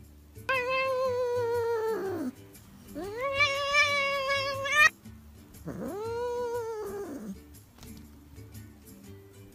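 Domestic cat giving three long, drawn-out meows. The first falls in pitch at its end, the middle one rises and is the loudest before cutting off suddenly, and the third arches up and back down. Quiet background music runs underneath.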